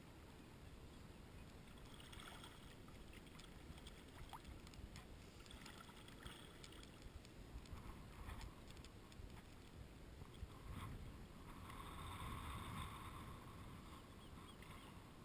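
Faint water lapping and splashing around a person wading in shallow sea water, over a low rumble, with a slightly louder splash about three-quarters of the way through.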